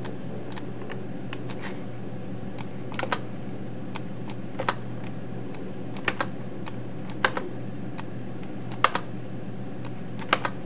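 Computer keyboard keys pressed in short clusters of two or three, every second or so, as comment slashes are deleted line by line in a code file. A steady low hum runs underneath.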